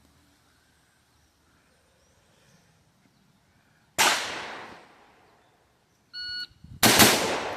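A single rifle shot about four seconds in, echoing as it fades; then a shot timer's short electronic start beep, followed within about a second by a fast pair of rifle shots, a double tap.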